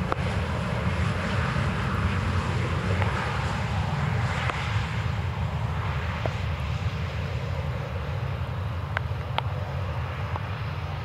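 Jet airliner's engines on arrival, a steady roar with a heavy low rumble and a broad hiss that holds level throughout.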